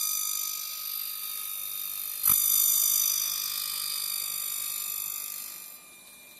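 Automatic end milling machine's large milling cutters cutting into the end of a window mullion profile: a loud, high-pitched metallic ringing with many steady tones, which bites in harder with a sharp onset about two seconds in and then fades away near the end.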